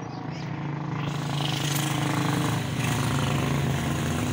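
A motor vehicle engine running with a steady low drone, growing louder over the first second or so.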